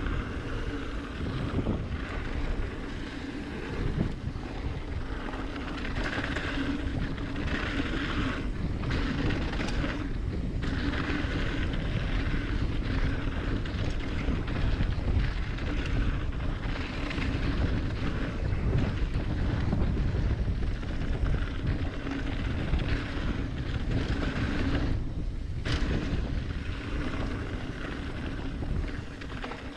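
Wind rushing over the microphone and a mountain bike's tyres rolling fast on a dry dirt trail, with a steady low hum and rougher stretches where the ground gets bumpier.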